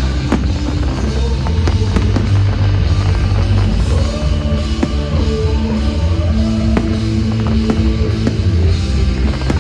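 The music of a pyromusical fireworks show, with a strong bass and held notes, and a few sharp firework bangs cutting through it.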